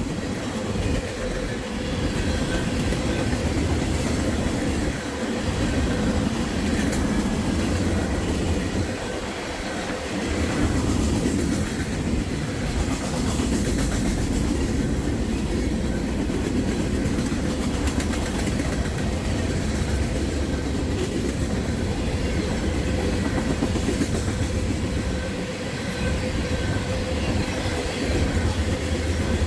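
Norfolk Southern freight train's cars rolling past at track side: a steady, continuous noise of steel wheels running on the rails.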